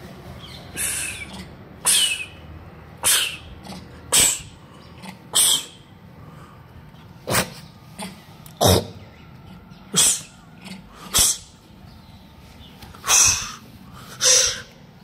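Rhesus macaque giving a series of short, harsh, breathy huffs, about a dozen, roughly one a second.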